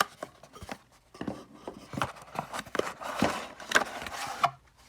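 Cardboard phone box and its inner cover being handled: a run of irregular taps, clicks and short scrapes.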